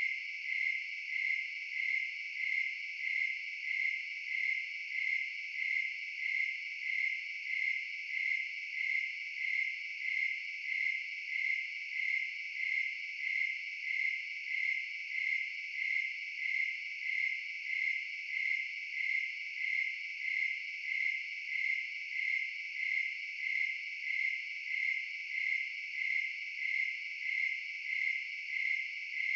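Crickets chirping in an even, unbroken rhythm, about three high-pitched chirps every two seconds.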